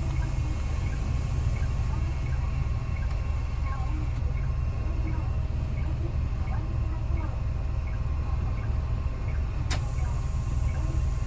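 Highway coach running along the road, heard from inside the passenger cabin: a steady low engine and road rumble, with one sharp click about ten seconds in.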